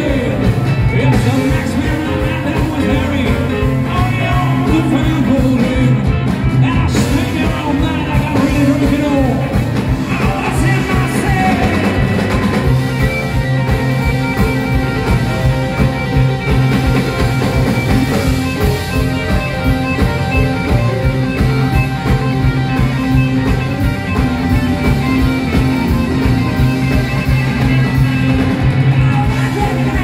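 Live blues-rock band playing: lead vocals over electric guitar, bass guitar, drum kit and keyboard, loud and steady, with a more instrumental passage of held notes setting in partway through.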